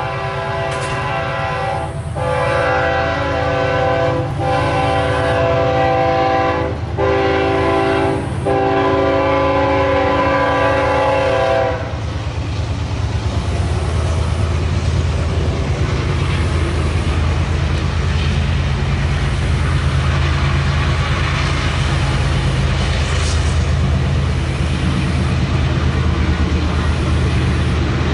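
Multi-chime air horn of an approaching BNSF diesel freight locomotive, sounding a series of blasts with a short one near the end and a final long one that stops about twelve seconds in. After that comes a steady low rumble of the locomotive's diesel engines and the train drawing near.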